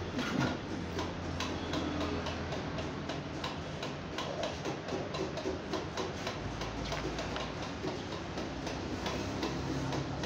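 Rapid, regular ticking, several ticks a second, over a steady low hum.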